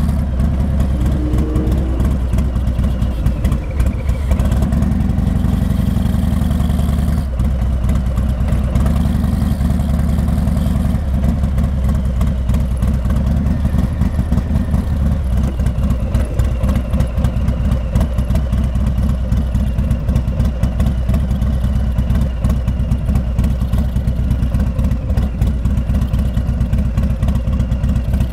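Harley-Davidson Heritage Classic 114's Milwaukee-Eight V-twin running through Rinehart exhausts at low speed, a steady, loping exhaust beat with no hard revving.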